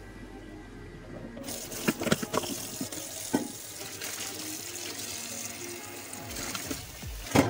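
Tap water running into a stainless steel sink over a pile of lemon basil leaves being rinsed, the flow getting louder about a second and a half in. A few sharp knocks or splashes come through the rush of water, the loudest near the end.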